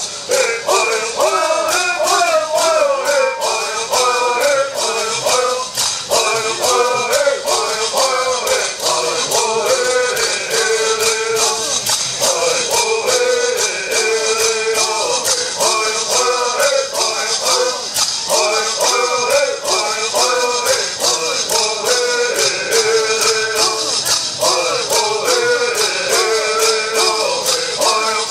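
Bird singing: a group of men singing a Southern California bird song together in repeated phrases, keeping a steady beat with shaken gourd rattles.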